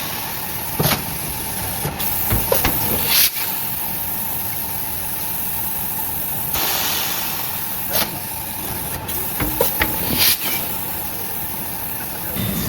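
PET blow molding machine running: repeated hisses of compressed air over a steady machine noise, with several sharp clicks and knocks from its moving parts.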